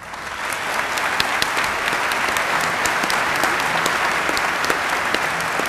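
Audience applauding: the applause starts at once and builds over the first second, then holds steady, with single sharp claps standing out.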